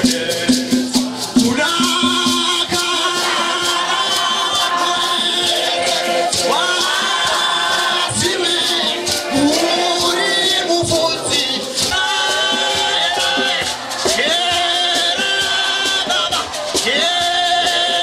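A group of male voices singing a gospel song together, with hand shakers keeping up a fast steady rhythm underneath.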